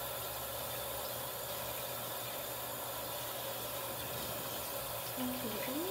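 Steady hiss with a low hum underneath. A faint voice makes a few short sounds near the end.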